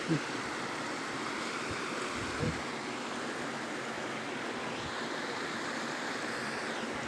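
Waterfall rushing steadily, an even roar of falling water. Two brief short sounds stand out, one right at the start and one about two and a half seconds in.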